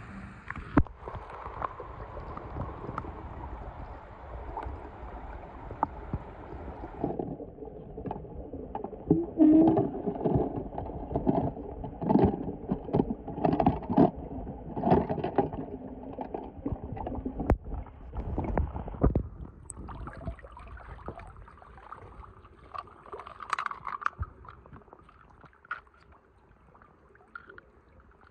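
Muffled sloshing and gurgling of pool water around a camera held under the surface, with a run of knocks and bumps through the middle, then quieter near the end.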